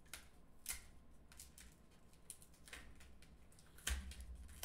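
Foil wrapper of a Magic: The Gathering booster pack crinkling and tearing as it is peeled open by hand: faint scattered crackles. The loudest comes about four seconds in, with a low bump.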